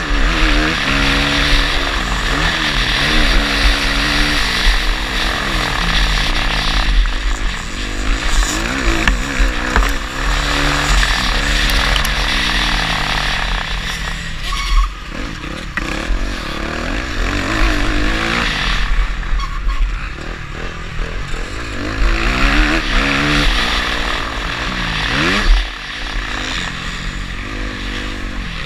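Motocross dirt bike engine heard from on board, its revs rising and falling over and over as the rider works the throttle and gears. The engine drops off briefly about halfway through and revs up sharply near the end.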